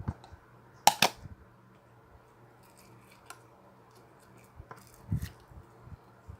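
Slime being pressed and poked by hand, giving sharp pops and clicks: a loud double pop about a second in, then fainter ones later, over a faint steady hum.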